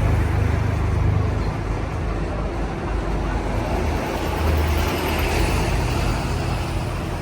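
Steady low rumbling background noise with no clear events, the kind of loud outdoor rumble heard from road traffic or wind on the microphone.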